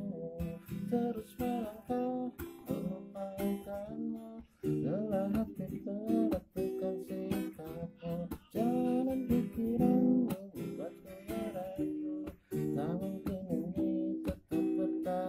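Acoustic guitar strummed steadily, with a man's voice singing the melody along with it.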